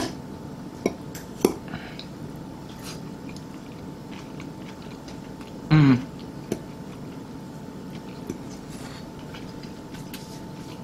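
A metal fork clicks twice against a ceramic bowl, followed by faint chewing as a mouthful of stir fry is eaten. A short low 'mm' hum from the eater comes about six seconds in.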